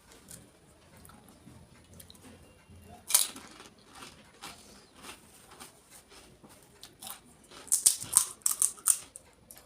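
Crisp golgappa (pani puri) shells being bitten and chewed: one loud crunch about three seconds in, small clicks after it, then a quick run of sharp crunches near the end.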